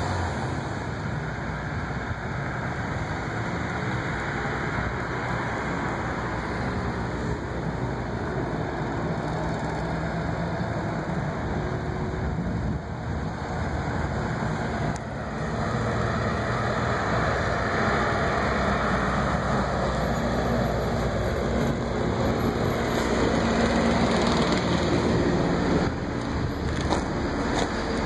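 Steady street traffic noise, louder for several seconds near the end as a vehicle passes.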